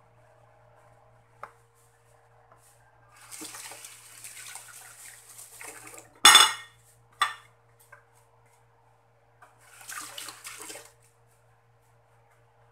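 Kitchenware clatter: a loud metal clank that rings briefly about six seconds in, followed a second later by a sharper knock. Two stretches of rushing noise come before and after it.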